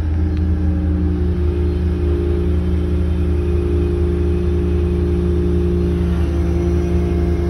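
Excavator's diesel engine running steadily with a low hum, heard from inside the cab, while the boom lifts the bucket and the upper structure swings.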